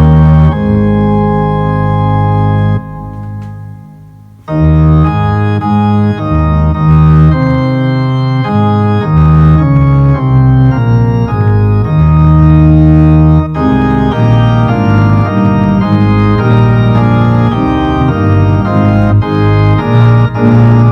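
Organ music: loud sustained chords that move every second or so, dropping away about three seconds in and coming back in full a second and a half later.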